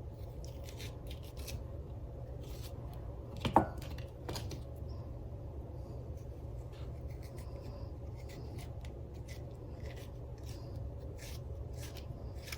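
Seeds being scraped out of a peeled cucumber: a run of short, soft scraping strokes at an uneven pace, with one louder knock about three and a half seconds in, over a steady low hum.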